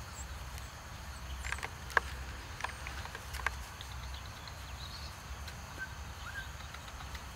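Quiet outdoor background: a steady low rumble, with a few short clicks between about one and a half and three and a half seconds in, the sharpest near two seconds.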